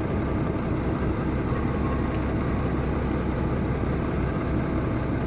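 Steady, even drone of the boatyard crane's engine running while it holds the lifted boat.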